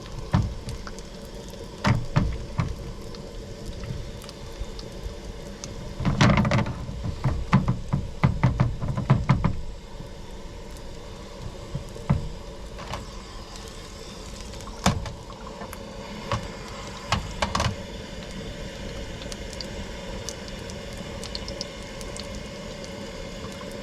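Knocks and clatter of cookware being handled over a steady background hiss, with a dense run of knocks about six to ten seconds in and scattered single knocks after.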